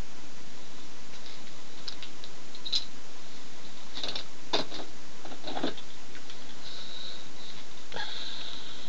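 Steady hiss with a few light clicks and scrapes around the middle, and a thin high whine near the end.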